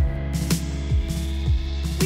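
Background music with a steady beat: a deep bass drum hitting about twice a second over sustained low notes.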